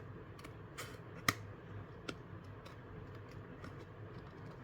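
Scissors cutting a paper cover: faint, irregular snips and clicks, the sharpest about a second in.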